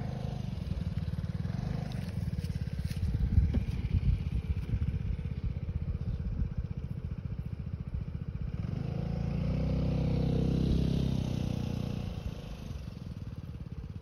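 Wind rumbling and buffeting on the microphone, then a motor vehicle's engine passing by, swelling about nine seconds in and fading away by about twelve.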